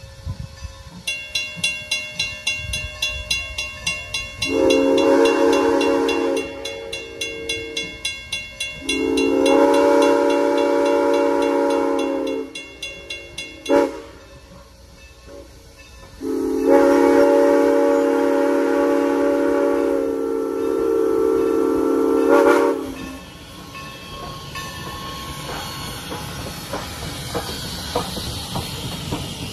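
Steam locomotive whistle blowing the grade-crossing signal, long, long, short, long, over a railroad crossing bell ringing about twice a second. The locomotive, Norfolk & Western 4-8-0 No. 475, then passes with a hiss of steam.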